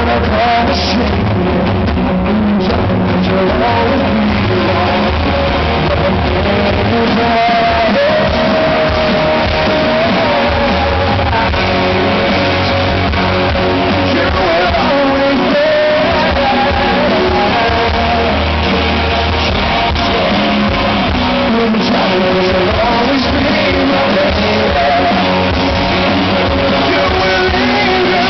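Live rock band with a male lead singer, recorded from within the audience: electric guitar and band under the vocal, with long held sung notes.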